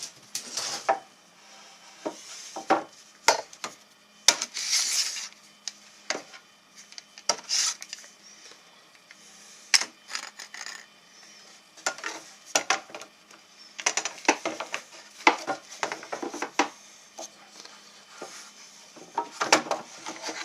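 Clamps and wooden legs being handled and clamped to a wooden benchwork frame: irregular clicks, clacks and knocks, mixed with short scraping and rubbing sounds.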